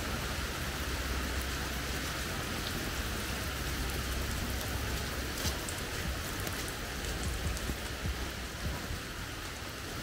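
Steady rain falling on grass, leaves and a stone path, with a few louder drops pattering in the second half.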